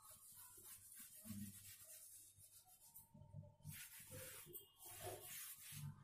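Faint rubbing of a blackboard duster wiping chalk off a blackboard, in stretches with a short break about three seconds in.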